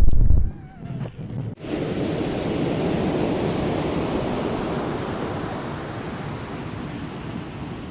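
Strong wind on the microphone: low rumbling buffets at first, then about one and a half seconds in an abrupt switch to a steady rushing hiss that slowly fades.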